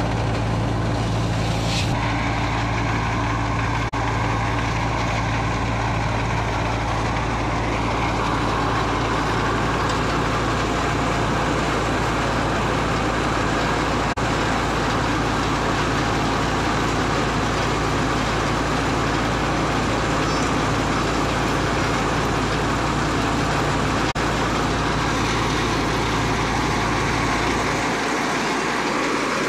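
Belt-driven threshing machine running steadily at full work, a constant engine-and-drum drone under a dense rushing clatter as crop is fed through it. The lowest part of the drone thins out near the end.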